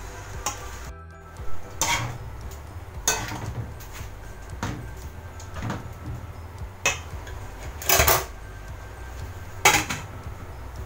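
Cooking utensils knocking and scraping against a metal wok as noodles are tossed in it: about seven sharp clacks, spaced out. The loudest comes near the end as a glass lid is set on the wok. Soft background music plays underneath.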